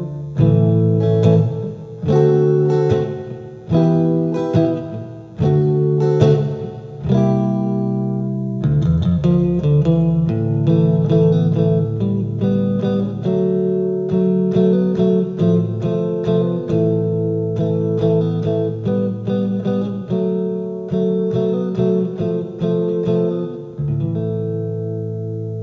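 Electric guitar played through an amplifier: ringing chords struck about once a second, then from about eight seconds in a quicker, busier picked passage, settling on a held chord near the end.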